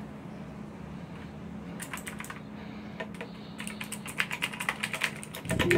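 Typing on a Razer BlackWidow Ultimate 2016 mechanical keyboard: a few key clicks about two seconds in, then a quick, dense run of keystrokes in the second half.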